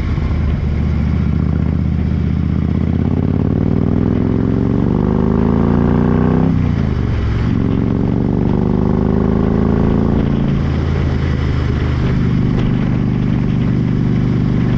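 Harley-Davidson Road King's V-twin engine pulling hard under acceleration, its pitch climbing, dropping sharply about six and a half seconds in and again about four seconds later as the rider changes up a gear, then holding steady.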